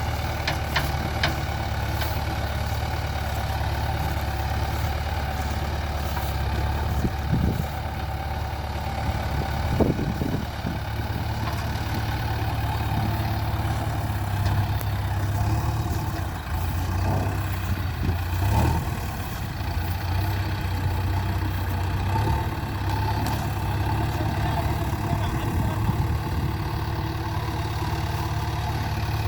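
JCB 3DX backhoe loader's diesel engine running steadily at low speed, with a few short knocks of the machine's metal parts.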